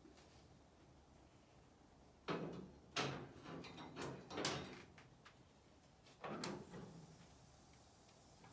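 Lids and firebox door of an antique cast iron wood cookstove being handled while the fire is tended: a few short metal clanks and scrapes, the loudest about two and three seconds in, more around four seconds and a last one near six and a half seconds.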